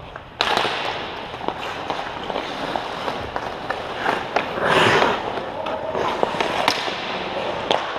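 Ice hockey play: skates scraping and carving on the ice, with sharp clacks of sticks and puck scattered throughout and a louder rush of noise about five seconds in.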